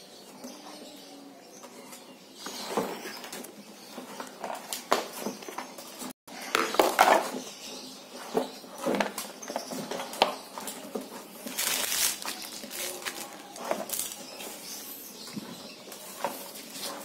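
Handling noises: irregular rustling, knocks and scrapes of plastic and shell as a large tortoise is moved out of a plastic crate of bedding onto a plastic tray. The sound cuts out for a moment about six seconds in, and the loudest bursts come just after that and around the twelve-second mark.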